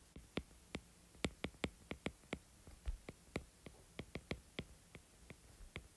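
Stylus tip tapping and ticking on a tablet's glass screen during handwriting: a faint string of sharp, irregular clicks, about three a second.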